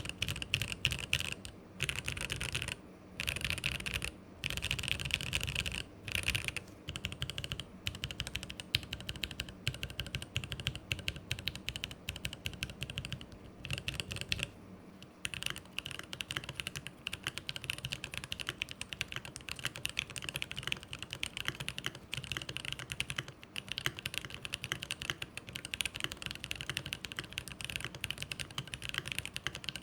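Fast, continuous typing on a GMMK Pro mechanical keyboard with lubed 67 g JWK T1 tactile switches in an aluminium plate and GMK Mizu clone keycaps. Dense keystroke clacks with a few brief pauses.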